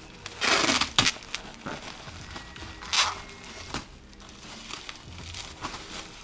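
Bubble wrap crinkling and rustling as it is pulled off a package by hand, with two loud crackly bursts, about half a second in and again around three seconds in, and a sharp click just after the first.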